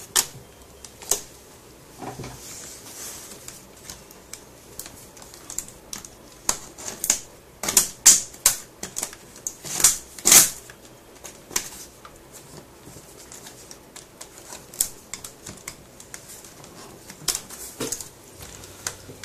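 Irregular sharp plastic clicks and snaps from an HP Pavilion DV6 laptop's case as its top panel is pried and pulled away from the base, the loudest snaps about eight and ten seconds in.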